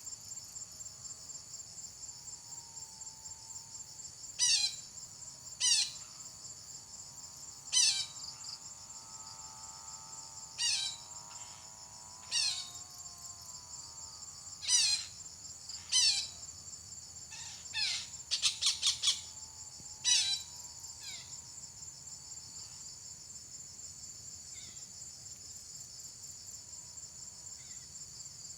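A betet (red-breasted parakeet) giving short shrill calls, each dropping in pitch. About ten calls come singly, with a quick run of about five near two-thirds of the way through, over a steady pulsing chorus of crickets.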